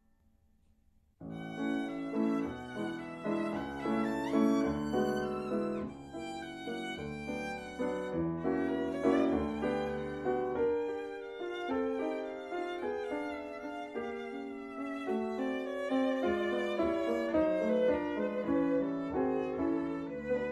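Violin-led music score: after about a second of near silence, a violin plays a lively melody with accompaniment.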